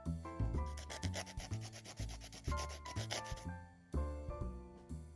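Background music with a steady beat: bass notes and chords changing every half second or so under a quick hi-hat-like ticking.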